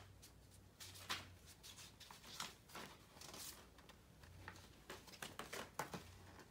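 Faint paper rustling and crinkling, in quick irregular bursts, as a folded paper exercise chart and instruction leaflets are unfolded and handled.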